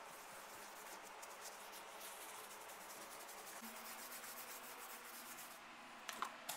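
Faint rubbing of a paintbrush's bristles scrubbing a cleaning chemical over a granite countertop, in a quick run of strokes. A few light knocks near the end.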